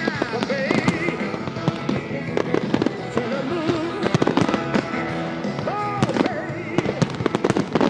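Aerial fireworks bursting and crackling in quick, irregular succession, with music playing underneath.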